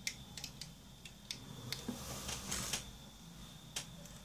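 Handling noise as the camera is reached for: a few light clicks and taps, with a brief rustle about two and a half seconds in, over a faint steady high whine.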